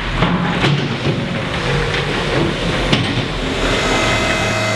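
Car-repair workshop noise: a few sharp metallic knocks over a steady din, then a steady whine that sets in near the end.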